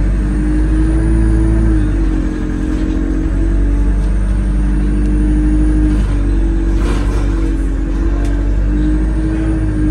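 Cabin noise inside a moving Metroline single-deck bus (DEL1973, an Alexander Dennis Enviro200): a steady low engine drone whose note shifts in pitch a few times as the bus changes speed, with a thin high whine rising and falling over it. Brief body rattles come about seven and eight seconds in.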